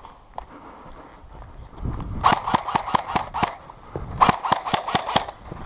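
Quick footsteps on a rubble-strewn gravel track, in two spells of about a second each, a rapid run of sharp steps with a pause between.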